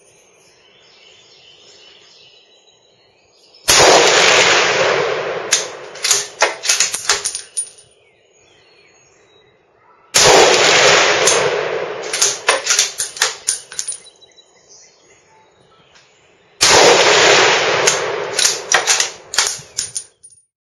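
Three rifle shots from a Remington 700 short-action bolt rifle in an A*B Arms MOD X chassis, about six and a half seconds apart. Each loud shot is followed by a rolling echo and a string of sharp cracks that die away over a few seconds.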